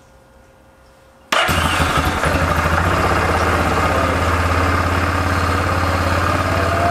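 Yamaha Kodiak 400 ATV's single-cylinder four-stroke engine starting suddenly about a second in, then idling steadily and loudly. It is being run briefly with the cooling system full of flush water, to circulate it before draining.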